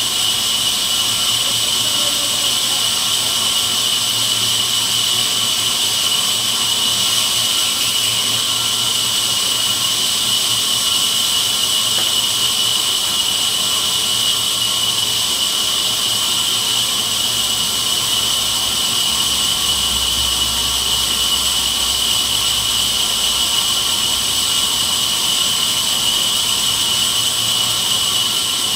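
Sawmill band saw (aara machine) running steadily, a loud machine noise with a constant high whine and a low hum; a slight deeper rumble joins about two-thirds of the way through.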